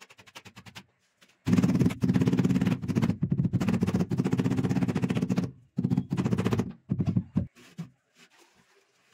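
A large ceramic floor tile being pressed and slid back and forth by hand on its wet mortar bed to seat it, giving a low, rapid grinding. It comes in one long stretch of about four seconds and then two shorter strokes.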